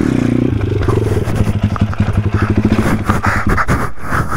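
YCF 150 SM pit bike's single-cylinder engine revs briefly, then bogs down, its beat growing slower and weaker as it dies toward a stall. The rider blames the carburettor for the engine cutting out.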